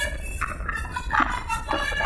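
Bus's basuri telolet horn playing a melody of short notes that change pitch every fraction of a second, over a steady low rumble.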